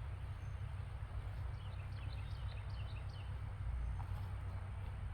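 Outdoor garden ambience with a steady low rumble. A small bird chirps a quick series of short, high, falling notes about two to three seconds in.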